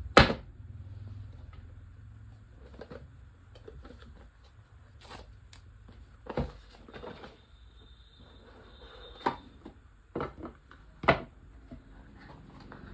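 Handling of an AirPods Pro box and its packaging: scattered sharp knocks and taps, the loudest right at the start and about eleven seconds in.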